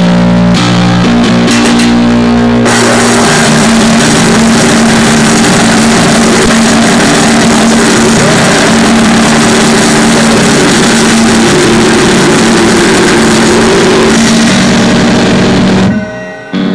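Crust punk / noisecore music played very loud: heavily distorted guitar chords open out after a couple of seconds into a dense wall of noise. The wall drops out briefly near the end.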